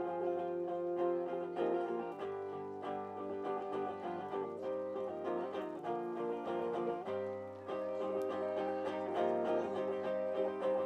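Guitar playing a song's instrumental introduction, a run of plucked notes ringing over sustained chords.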